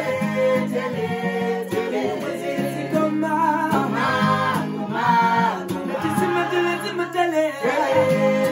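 Several voices singing together over a strummed acoustic guitar.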